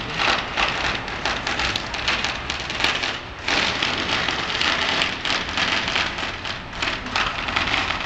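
Dense, rapid crackling of many Chinese New Year firecrackers going off at once in the streets below, with a brief lull about three and a half seconds in.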